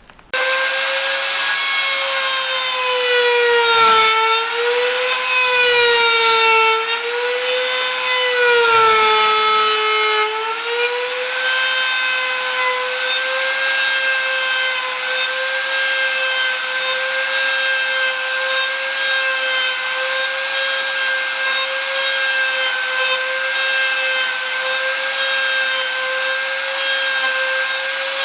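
Power woodworking tool running steadily and cutting white oak, its pitch dipping briefly three times in the first ten seconds as the load on the motor rises, then holding steady.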